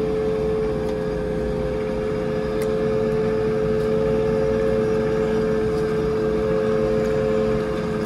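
Compact Merlo telehandler engine running steadily under light load while driving slowly, heard from inside the cab, with a steady hum and a high steady whine over it.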